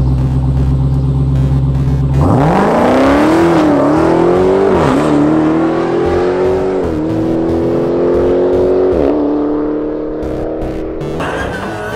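Dodge Challenger SRT Demon's supercharged 6.2-litre Hemi V8 holding low and steady at the starting line, then launching hard about two seconds in. The engine note climbs and drops back at each of several quick upshifts as the car pulls away down the drag strip. Near the end a higher, wavering tyre squeal takes over.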